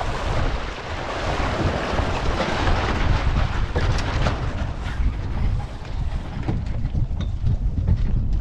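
Wind buffeting the microphone aboard a Lightning-class sailboat under way, a steady low rumble, with water rushing along the hull, louder in the first few seconds, and a few small clicks.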